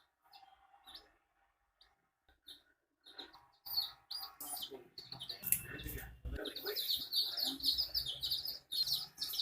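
Baby chicks peeping: sparse and faint at first, then from about three and a half seconds in a dense run of short, rapid, high-pitched cheeps. A low rumble comes and goes beneath them.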